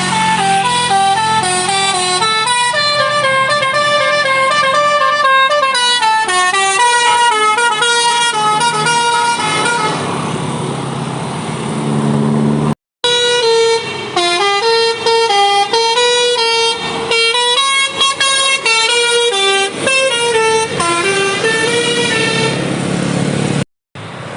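Bus 'basuri' musical air horn (telolet horn) playing a tune of quick stepping notes. The tune breaks off abruptly about thirteen seconds in, starts again, and breaks off once more near the end.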